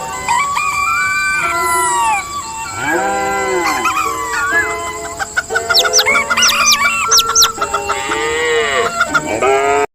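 Rooster crowing and chickens clucking over background music, with a run of quick high chirps in the middle.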